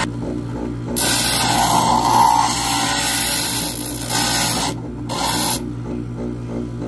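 Glastar glass grinder's diamond bit grinding the edge of a dichroic glass piece: a rasping grind over the steady motor hum, with one long pass of about four seconds starting about a second in and a short pass just after it, and only the motor hum while the glass is lifted off.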